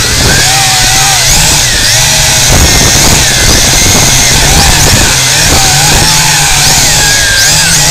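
Multirotor drone's electric motors and propellers buzzing loudly, their pitch wavering up and down as the motors change speed to hold and steer the craft.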